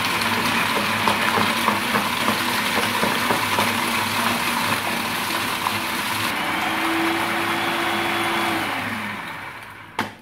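Food processor running at full speed, chopping stale bread into breadcrumbs with a loud rattling grind. About six seconds in the noise turns smoother with a steady hum, then the motor winds down with a falling hum and stops, followed by a single click.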